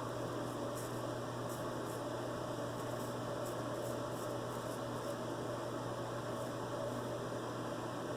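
Steady low hum and hiss of room noise, with faint short scrapes about every half second to second: a vintage George Wostenholm & Sons straight razor cutting stubble.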